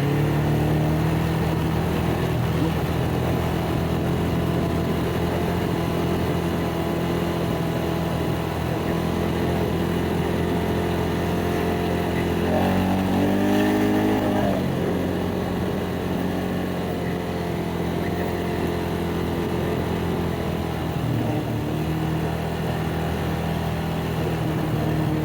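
ATV engine running steadily under way, with a brief change in pitch about halfway through as the throttle changes.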